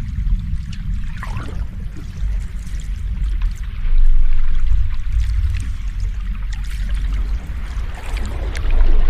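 Sea waves washing in: a deep steady rumble under a hiss of fizzing, breaking water. It swells louder about four seconds in and again near the end.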